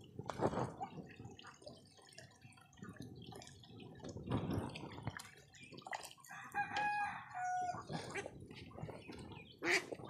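Water from a garden hose splashing and dripping into a steel basin and the pond, with scattered knocks as the basin is handled. A rooster crows once, about two-thirds of the way through, in two drawn-out notes, the second a little lower.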